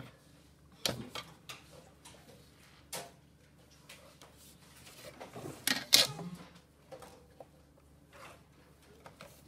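Plastic drafting instruments, a set square and a straight-edge ruler, being put down and shifted on a drawing board: a few sharp clicks and taps in the first three seconds, and a louder cluster of knocks with some sliding about six seconds in.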